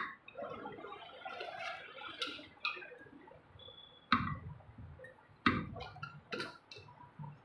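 Irregular metallic clinks and knocks of tools and pump parts being handled during reassembly of a 30 hp pump, with two louder knocks about halfway through and a second and a half later.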